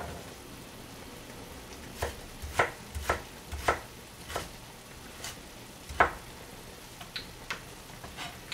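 Kitchen knife cutting Korean radish (mu) into sticks on a plastic cutting board: about ten separate chops, starting about two seconds in and spaced half a second to a second apart.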